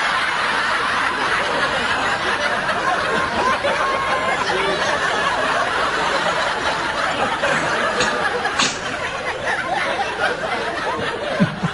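Several people snickering and chuckling in a steady mass of laughter that eases off a little near the end.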